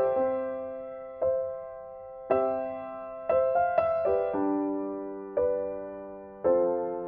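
Solo piano background music: slow, soft chords struck about once a second, each left to ring and fade before the next.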